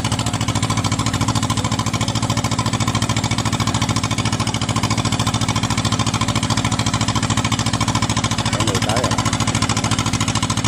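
Diesel engine of a Kubota DC70 rice combine harvester running steadily close by, with a fast, even chugging pulse.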